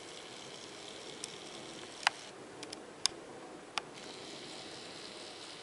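A handful of sharp, irregularly spaced clicks, three of them louder, over a faint steady room hiss.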